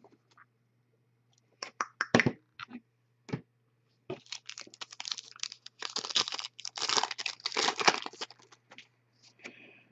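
A few light clicks and taps from handling the cards, then, from about four seconds in for some five seconds, the crackling and tearing of a foil trading-card pack wrapper being ripped open and crumpled.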